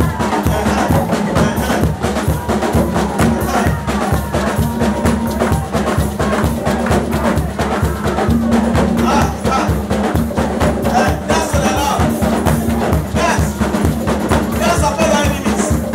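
Live praise music played on drum kit and hand drums, a fast steady dance beat.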